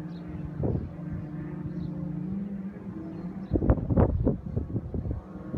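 Distant jet ski engines droning steadily, their pitch rising slightly about two seconds in. A little past halfway, wind buffets the microphone in rough gusts that are louder than the engines.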